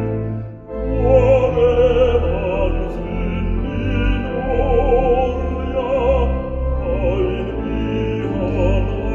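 A man singing a hymn in Finnish with a wavering vibrato, accompanied by a pipe organ holding low sustained notes. Voice and organ drop away briefly just under a second in, then the next line begins.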